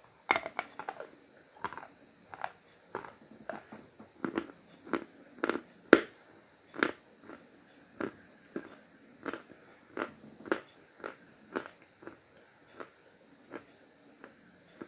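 Pieces of Khrapovsky chalk being bitten and chewed close to the microphone: a steady series of sharp crunches, about two a second, with a quick flurry of them about a second in.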